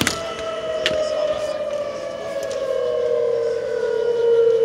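Outdoor tornado warning sirens wailing, a long held tone that slowly slides down and back up, with two sirens' tones overlapping. A sharp click at the start and another about a second in.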